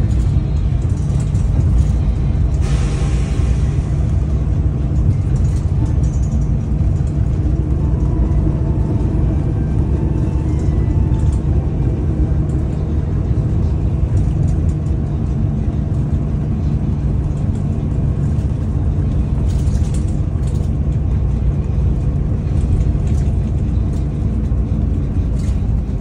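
Daewoo FX116 city bus engine running while the bus drives, heard from inside the passenger cabin: a steady low drone with road rumble. A short hiss comes about three seconds in.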